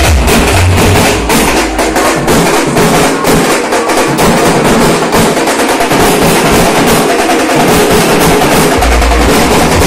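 Loud drumming from hand-carried procession drums beating a fast, steady rhythm, with a deep bass coming in near the end.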